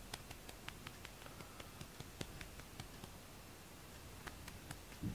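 Faint rustling with scattered soft ticks and one slightly louder soft knock near the end, from a hand stroking a cat's fur.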